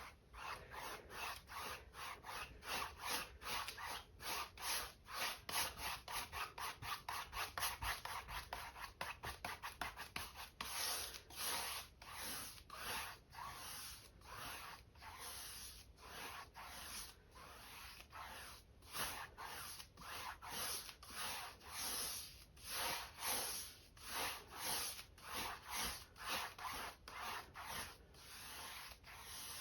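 Paintbrush bristles scrubbing back and forth across a stretched canvas, blending acrylic paint. The strokes are quick and close together at first, then slow to about one stroke a second after roughly ten seconds.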